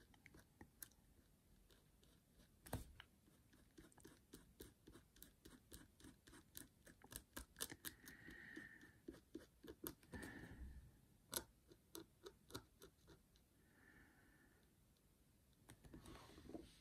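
Faint tapping and scratching of a Posca bullet-tip paint marker on a small rock as an area is coloured in: a fast run of light ticks in the middle, with a couple of sharper clicks.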